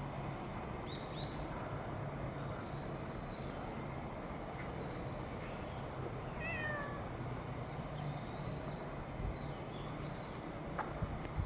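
A domestic cat meows once, a short call falling in pitch, about six and a half seconds in.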